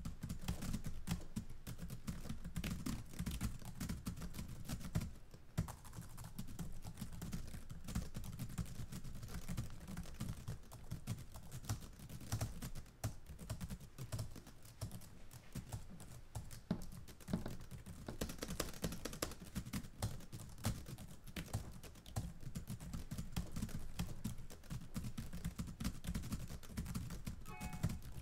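Computer keyboard being typed on continuously: a rapid, uneven stream of key clicks.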